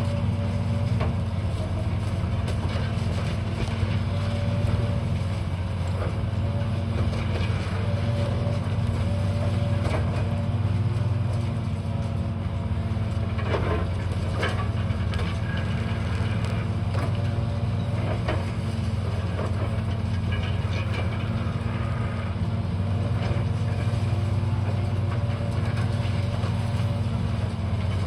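Demolition machinery: a heavy diesel engine running steadily, with scattered knocks and cracks of material being broken, a few louder ones about halfway through.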